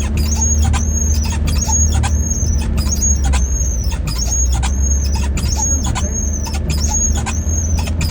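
Car running with a steady low rumble, and a high-pitched squeak with a click repeating about once a second.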